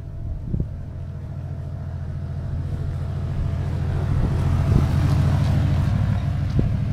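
Cruiser motorcycle's engine running as it rides past, a low pulsing rumble that grows steadily louder, peaks about five seconds in, then begins to fade as it moves away.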